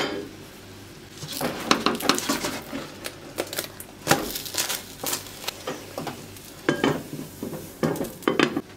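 A silicone spatula scrapes and taps against a non-stick granite-coated pot while a gözleme is worked in it, and a glass lid clinks as it is lifted and set back on. The noises are irregular, with a sharp knock right at the start.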